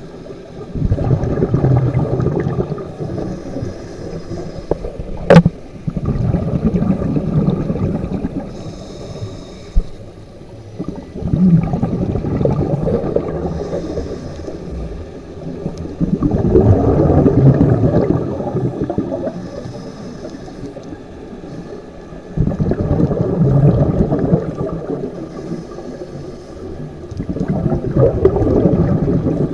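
Scuba diver breathing through a regulator underwater: six gurgling rushes of exhaled bubbles, each two to three seconds long and about five to six seconds apart, with a faint hiss of inhalation between them. A single sharp click about five seconds in.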